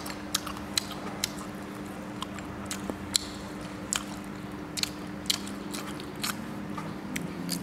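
Close-up eating sounds: chewing and biting into crunchy fried dried fish, with many small, sharp clicks scattered throughout, over a steady low hum.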